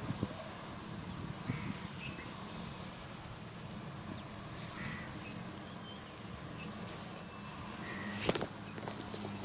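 Outdoor background: a steady low hum with a few faint short chirps, and a single knock a little after eight seconds in, as of the phone being handled.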